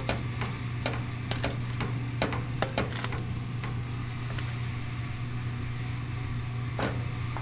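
Plastic spatula scraping and tapping against a large aluminium pan as glutinous rice is pressed flat to scorch into nurungji. There is a cluster of short clicks and scrapes in the first three seconds and one more near the end, over a steady low hum.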